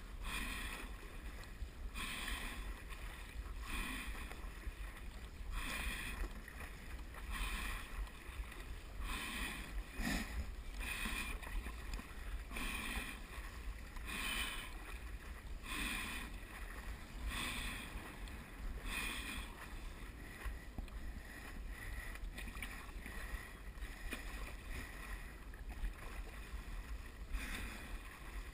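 Stand-up paddleboard paddle strokes splashing in the water, roughly one a second, fainter for a few seconds after the middle, over a steady low rumble.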